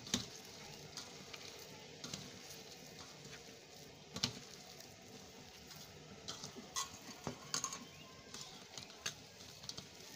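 Hands kneading milk-soaked bread crumbs into a dough in a stainless steel bowl: irregular soft squishes and pats, with scattered sharp knocks against the steel bowl.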